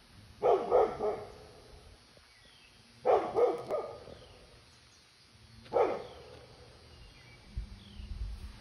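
A guard dog barking at a bear: a quick pair or three of barks, another pair about two and a half seconds later, then a single bark.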